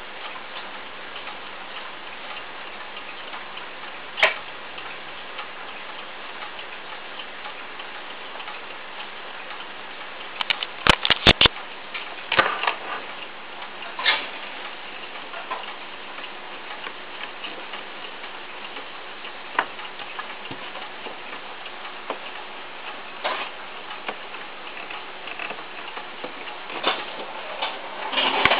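Atomic radio alarm clock running on a newly fitted motor: a steady hiss with faint ticking and scattered clicks, including a quick run of sharp clicks about eleven seconds in. The motor works again after repair.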